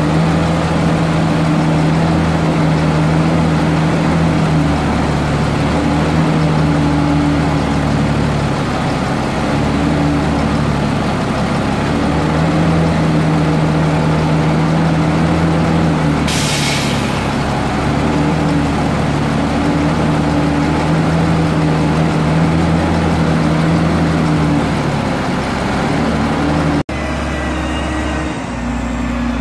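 Diesel dump truck engine running steadily while its hydraulic hoist lifts the tipper body, with a short hiss of air about halfway through. Near the end it cuts abruptly to a different engine sound.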